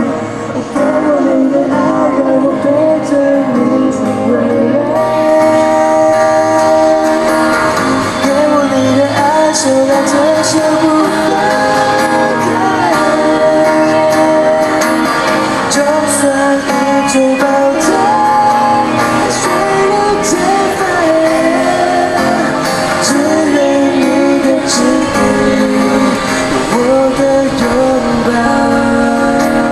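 Music with singing, melodic vocal lines over a sustained accompaniment, as captured by a smartphone's microphones in a recording test.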